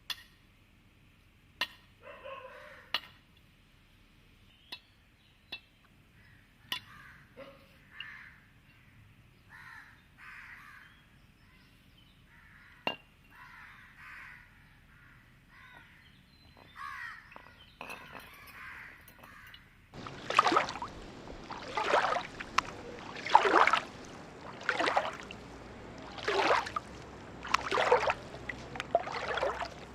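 Faint crows cawing now and then, with a few sharp clicks. About twenty seconds in, a loud rhythmic swishing takes over, about one noisy stroke a second.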